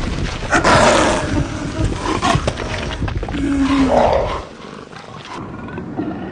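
Snow leopards snarling and roaring in a fight, a run of loud harsh snarls that drops off to quieter sounds about four and a half seconds in.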